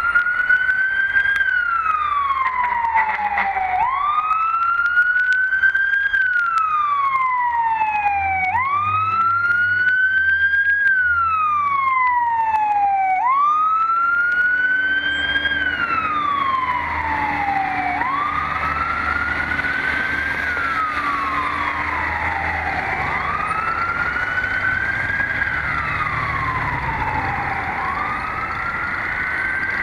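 Fire engine's electronic siren in a slow wail, each cycle rising quickly and falling slowly, about every four and a half seconds. Lower horn blasts come in a few seconds in and again around the middle, over the truck's engine rumble. The siren grows a little fainter in the second half as the truck moves away.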